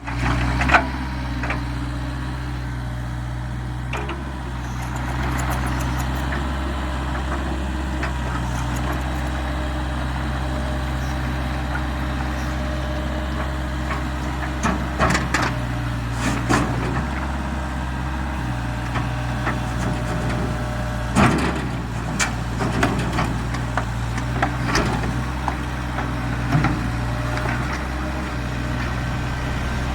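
Heavy diesel engine running steadily, with sharp knocks about a second in and several more in the second half.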